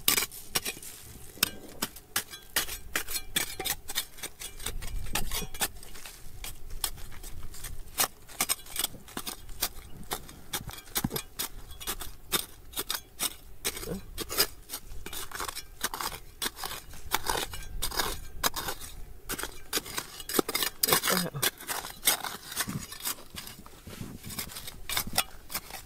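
Hand tools scraping and clinking against rock and stones: a dense run of sharp clicks and scrapes, busier in the second half.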